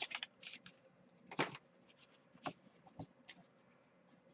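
Paper handling: a brief rustle as a paper band is slid off a stack of printed card stock, then a few short separate taps and rustles as the cards are handled.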